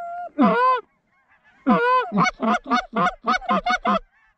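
Goose honking: two drawn-out honks in the first second, a short pause, then a rapid run of about eight short clucks that stops just before the end.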